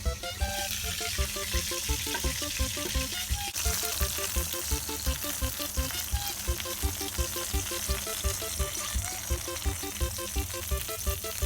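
Thick-cut bacon and eggs sizzling steadily in a frying pan, the hiss getting louder about three and a half seconds in. Background music with a steady beat plays underneath.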